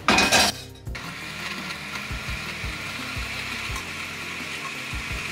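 Oster countertop blender running, puréeing cooked chiles with water into a smooth sauce. It is loudest in the first second, then settles into a steady whir.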